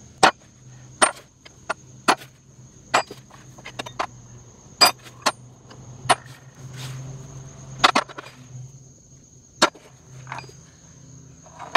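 Metal tensioner parts (bolts, nuts, washers, spacers) being set down one at a time on a hard plastic tumbler lid, each a sharp click or clink, about a dozen spread unevenly through. Under them runs a steady high insect trill, crickets.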